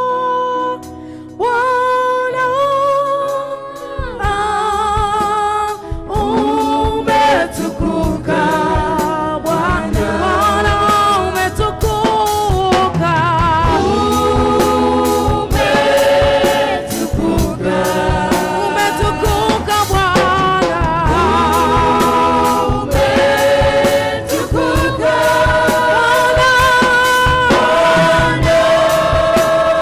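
Gospel music with singing. A lighter opening gives way, about four seconds in, to full accompaniment with a steady beat.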